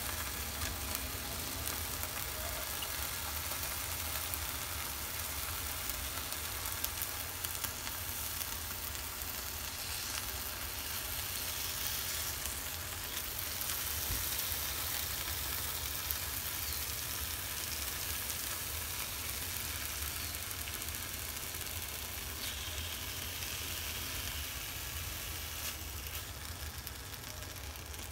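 Bacon strips sizzling steadily as they fry in a hot pan, with a steady low hum underneath.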